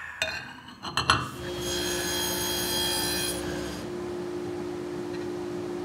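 Metal clinks as dado blades are set onto a table saw's arbor, then a steady machine hum with a high whine on top, starting about a second in; the whine drops away near four seconds.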